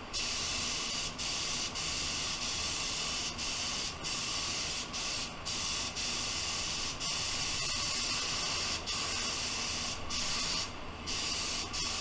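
Gravity-feed spray gun hissing with compressed air as it lays on a coat of black base paint. It sprays in long passes broken by about ten short pauses where the trigger is let go.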